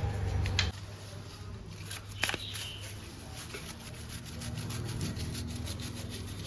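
Stiff brush scrubbing caked dust and old grease off the motorcycle's chain and sprocket area, with a sharp click about two seconds in. A low hum under it cuts off suddenly under a second in.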